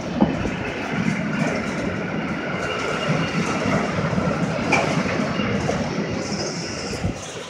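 Loaded two-deck car-carrier freight wagons rolling past: a steady rumble and rattle of wheels on the rails, with a thin high ringing above it. It eases off slightly near the end as the train draws away.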